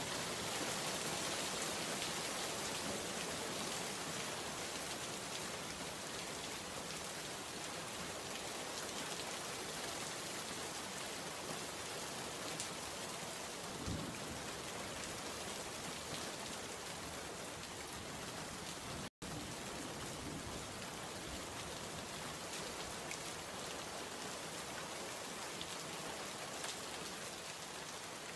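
Steady rain falling, an even hiss of drops with no pauses except one instant where the sound cuts out completely about two-thirds of the way through.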